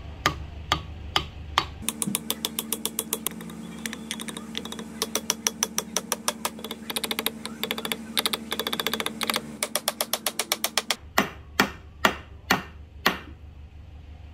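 Claw hammer driving a wooden wedge into the eye of a Pulaski axe head on its new rosewood handle, seating the head. It starts with a few separate blows, then a long run of rapid taps with a steady note beneath them, and ends with five slower, louder blows.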